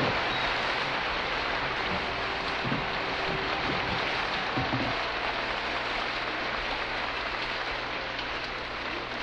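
Steady, even hiss of noise with a low hum underneath and a few faint soft thumps.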